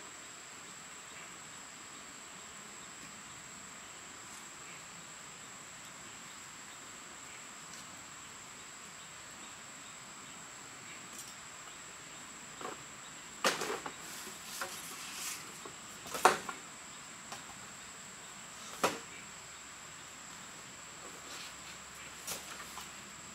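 Steady high-pitched drone of insects, with a run of sharp knocks and clatters in the second half as bamboo poles are handled and knock against each other, the loudest about two-thirds of the way through; a few lighter knocks near the end.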